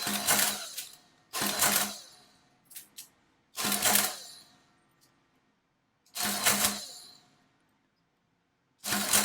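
Clary Model 169 adding machine running through five add-and-print cycles, each a short mechanical whirr-and-clatter of under a second, with a few short clicks between them as numbers are entered.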